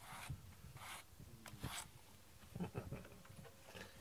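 A hand brush drawn through a cat's fur in several short scratchy strokes, most of them in the first two seconds, followed by soft rustling and handling noises.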